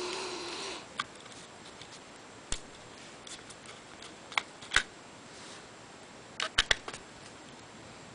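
Scattered sharp clicks and taps of a screwdriver and fingers on a charger's circuit board as screws are being taken out, a few isolated clicks with a quick cluster about six and a half seconds in. A short rustle at the very start.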